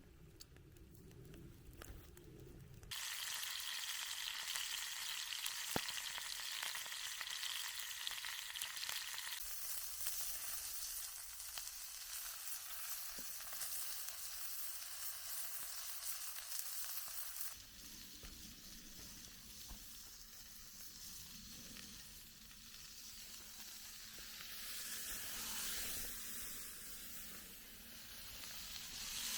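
Food sizzling as it fries in a pan, a steady hiss that starts suddenly about three seconds in and shifts abruptly twice.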